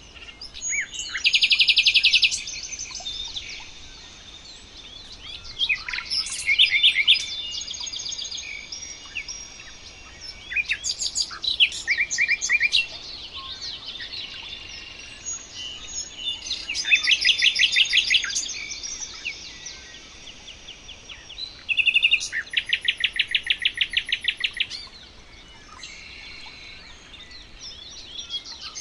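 Songbird singing, repeating a loud song phrase of fast trills about every five seconds, with quieter chirping between the phrases.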